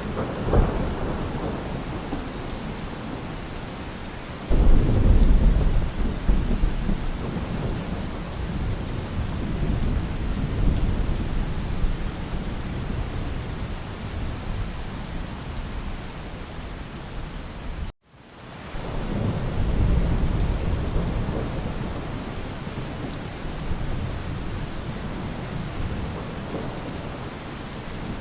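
Steady rain with rolling thunder: a deep rumble breaks in suddenly about four and a half seconds in and fades slowly, and after a brief cut-out about two-thirds of the way through another roll of thunder swells up.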